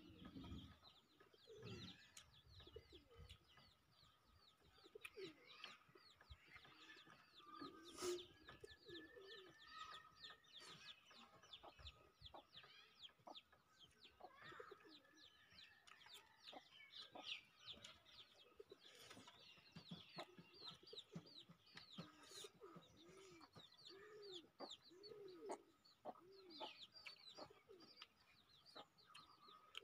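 Faint outdoor birdsong: small birds chirping quickly throughout, with low, repeated arching calls in the second half. A single sharp click sounds about eight seconds in.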